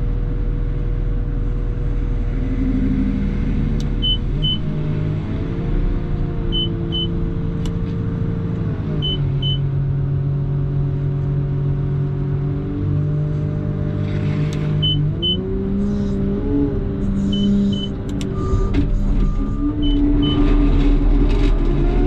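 CAT loader's diesel engine running, its speed shifting up and down several times as the machine works. A short, high double beep repeats every two to three seconds.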